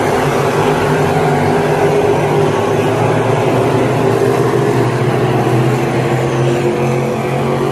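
Dirt-track street stock race cars racing around the oval, several engines running together in one steady, loud sound.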